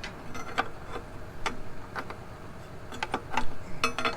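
Irregular sharp metallic clicks and clinks of hand tools against metal fittings and guards on a module builder, with a quick cluster near the end, during repair of a burst hydraulic line.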